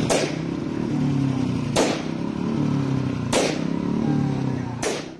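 Car engine running with four sharp shots about a second and a half apart: air-pistol shots fired into the air from a moving car.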